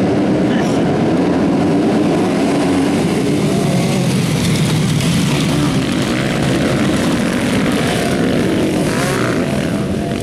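A full field of motocross bikes revving at the start line and then racing off in a pack, many engines overlapping loudly, their pitch rising as they accelerate.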